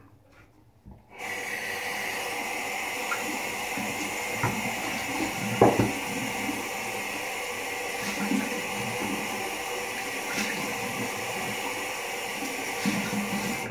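Water running from a tap into a sink, turned on about a second in and then flowing steadily, with a few light knocks.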